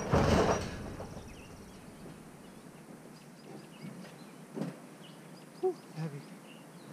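A loud crash and clatter as a man falls off a trailer, dying away within about a second. Then birds chirping faintly, with a few short knocks.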